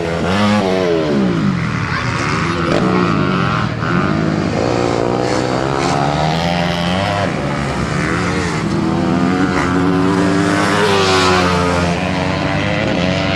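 250cc four-stroke racing motorcycle engines revving hard on a dirt track, their pitch repeatedly rising and falling as the bikes accelerate out of turns and shift gears, with more than one engine heard at once.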